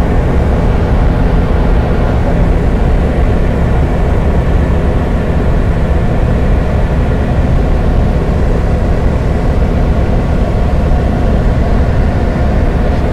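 Single-engine light aircraft's piston engine and propeller running steadily in flight, a loud, even drone heard from inside the cockpit.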